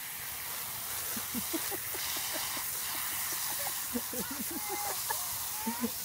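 Water hissing steadily as it sprays up from a lawn sprinkler on a garden hose, with a toddler's short babbling sounds over it.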